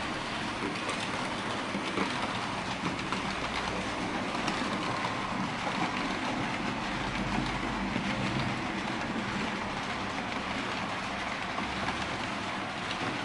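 Märklin H0 model trains running on metal M-track: a steady whirr of motors and rolling wheels with light clicking from the wheels over the rails.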